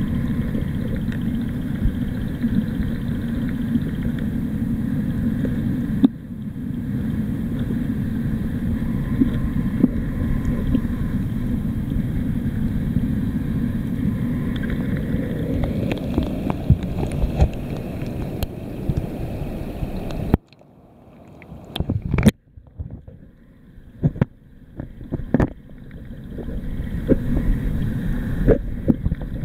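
Muffled underwater rumble of water moving around a submerged camera, with faint steady tones above it. About two-thirds of the way through the rumble drops away for several seconds, leaving scattered clicks and knocks, then builds back near the end.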